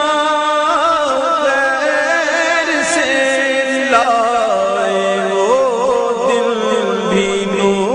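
Naat, an Urdu devotional song, being sung in a drawn-out, wavering melodic line over a steady held tone.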